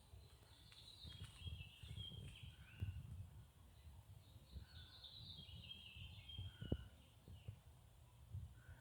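Faint birdsong in woodland: two high warbled phrases a few seconds apart, with short lower call notes between them. A low rumble runs underneath, and there is a single soft knock a little past the middle.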